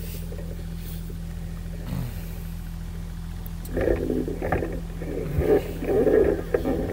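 An engine idling steadily with a low hum. From about four seconds in, irregular scuffing and rustling close to the microphone.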